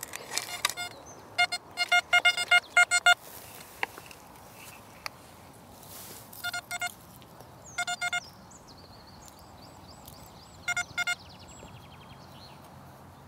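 XP Deus metal detector giving short, fast beeps in clusters as the loosened soil is checked over its coil, the target signal of a coin near the surface. A few scraping and clicking sounds of the spade and soil come near the start.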